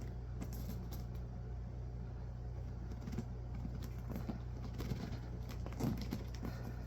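Scattered light clicks and rustles of a collectible figure's box and inner packaging being worked open by hand, over a steady low hum.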